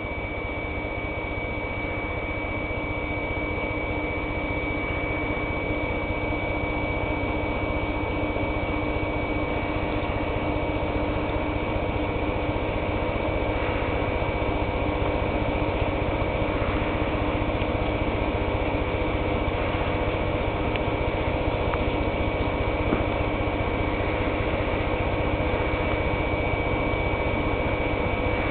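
Steady machine hum and hiss with several constant tones, including a thin high whine, unchanging throughout.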